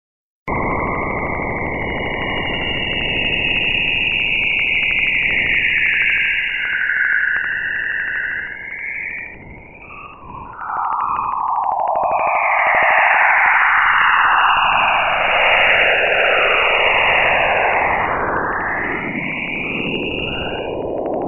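Sonified recording of Jupiter's polar aurora radio emissions: a steady hiss with whistling tones gliding up and down in pitch. It starts suddenly about half a second in, dips briefly around the middle, and the gliding tones grow stronger in the second half.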